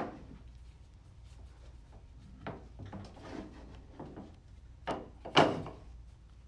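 Scattered knocks and clinks of metal as a partly assembled Nissan Quest CVT, its variator pulleys on the case cover, is handled and shifted on a workbench. A sharp click at the start, and the loudest knock, with a brief ring, about five and a half seconds in.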